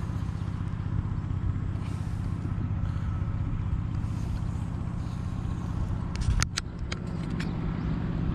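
A steady low motor hum, with a short run of about six sharp clicks about six seconds in.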